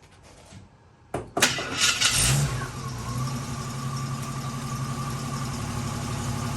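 1975 AM General DJ5-D Postal Jeep engine starting about a second in: a short crank, it catches and revs briefly, then settles to a steady idle.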